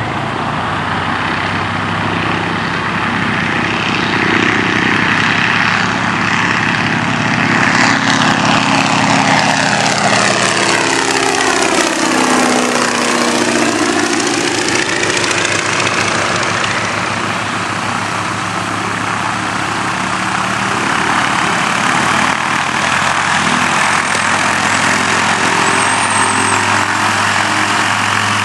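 Boeing Stearman biplane's radial engine running at full power on the takeoff run and climb. The sound swells and sweeps in pitch as the plane passes close by near the middle, then settles back to a steady engine drone.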